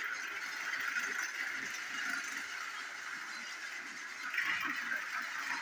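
Plarail EH500 battery-powered toy train running around plastic track: its small motor and gears whir steadily, briefly a little louder just after four seconds.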